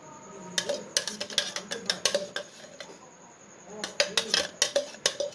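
Metal spoon clinking and scraping against a ceramic plate and a blender jar in two runs of quick taps, as ground onion paste is spooned into aloe vera gel.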